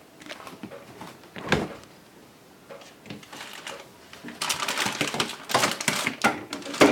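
Handling noise of clicks and knocks: one sharp knock about a second and a half in, then a dense, rapid run of clicks and taps from about four and a half seconds on.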